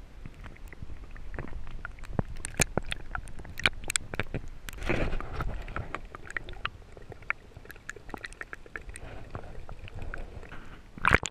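Muffled underwater sound picked up by an action camera held below the surface while swimming: water sloshing with scattered small clicks and crackles. A louder wash of water comes about five seconds in, and a short splash near the end.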